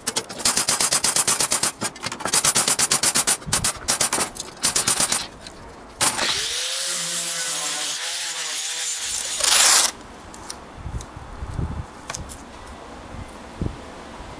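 A steel hand file rasps over a rusty steel strip in quick, repeated strokes. About six seconds in, an angle grinder with a sanding disc spins up, rising in pitch, and runs on the rusty flat bar to take off the rust. It grinds loudest just before it stops, about ten seconds in, and a few light knocks follow.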